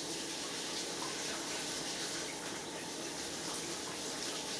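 Steady rushing of water running from a kitchen tap, with a few faint clicks.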